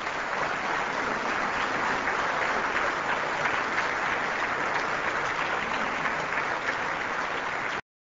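Audience applauding, a steady dense clapping that cuts off abruptly near the end.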